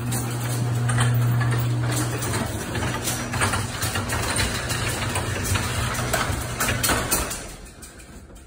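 A steady low machine hum with rapid clicks and rattles over it, fading away about seven and a half seconds in.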